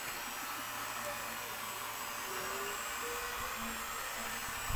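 Handheld electric drill fitted with a paddle mixer, running steadily while stirring thick homemade liquid dish soap in a plastic bucket.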